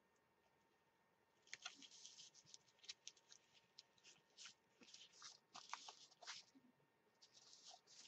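Faint, irregular paper rustling and crinkling: a foil sticker peeled from its sheet, then pressed and rubbed down by hand onto a kraft paper mailing envelope. It starts about a second and a half in.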